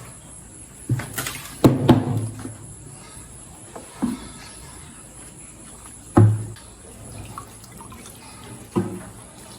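A cow eating wet feed from a trough: about half a dozen separate wet slurps and sloshes, the loudest near two seconds in and just after six seconds.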